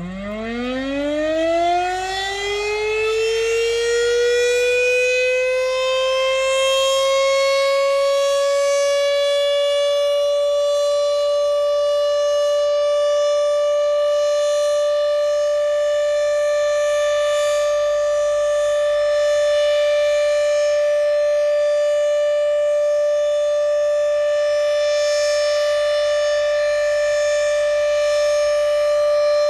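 Federal Signal Thunderbeam (RSH-10) outdoor warning siren winding up, its pitch rising steeply for the first few seconds and levelling off after about eight seconds into a steady tone that holds. This steady tone is the Alert signal, sounded as a monthly siren test.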